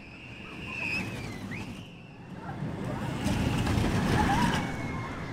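Steel family boomerang roller coaster train rolling along its track, a rumble that builds to its loudest about three to four seconds in as the cars pass close by.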